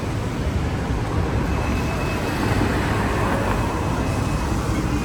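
Hong Kong double-decker tram running along the street, heard from on board: a steady rumble of the car and its wheels on the rails. A faint high tone comes in about a second and a half in.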